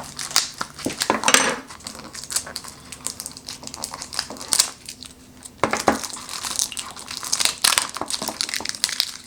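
Product packaging being handled and opened by hand: irregular crinkling and rustling with light clicks and knocks.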